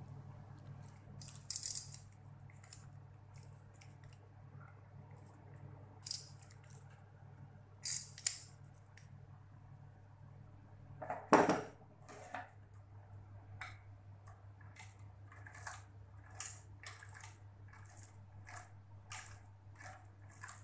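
Metal clinks and clicks from a rubber-wrapped friction-drive spindle and its freewheel sprocket being handled, with a louder clank about eleven seconds in and a run of quicker ticks, about two a second, after it.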